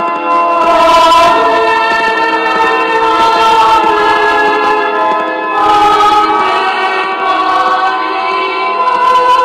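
Church pipe organ playing slow, sustained chords, with a new chord coming in about a second in and again near six seconds.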